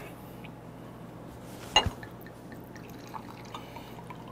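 One sharp knock of a glass bottle about two seconds in, then drink trickling from a bottle into a small glass near the end.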